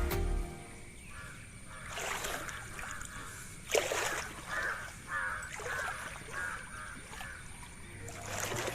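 A crow cawing, a quick run of about six short calls a few seconds in, over water splashing a few times.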